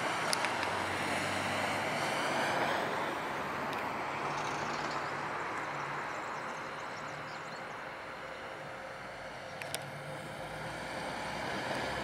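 Road traffic with motor vehicle engines running: a steady rush of noise over a low engine hum that shifts in pitch, with a couple of sharp clicks.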